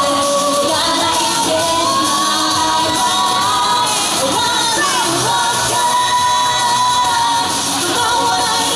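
Live pop song: a female vocal group singing into handheld microphones over amplified pop backing music.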